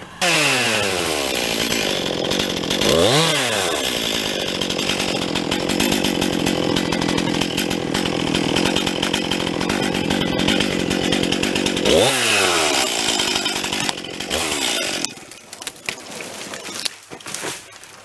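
STIHL chainsaw cutting through a small ash tree at full throttle. The revs dip and climb back about three seconds in and again about twelve seconds in, and the saw stops about fifteen seconds in. A few light knocks follow near the end.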